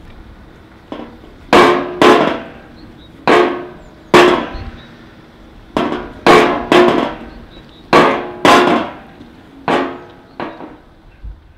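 Percussion music: a slow, uneven pattern of loud drum hits, some in quick pairs, each ringing out briefly.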